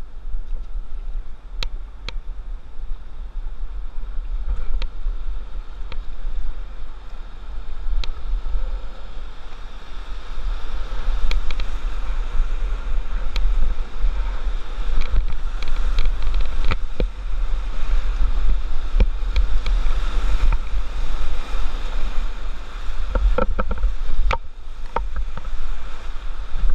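Rushing whitewater, growing louder about ten seconds in as a solo open canoe runs into the rapid, over a steady low rumble of wind on a helmet-mounted camera's microphone. Scattered sharp splashes and knocks come from the paddle strokes.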